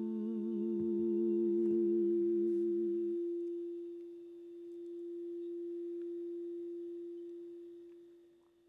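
Crystal singing bowls ringing out in two steady tones with a slow wavering pulse. The lower tone dies away about three seconds in, and the higher one keeps ringing, slowly swelling and fading.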